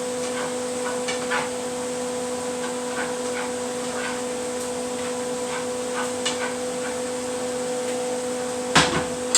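A steady machine hum from a running kitchen appliance, with faint scattered ticks and crackles over it, and a sharp knock near the end.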